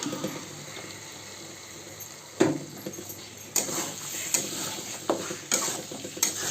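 Chicken sizzling and frying in hot oil in a pan while a spatula stirs it, scraping and knocking against the pan several times, the loudest knock about two and a half seconds in.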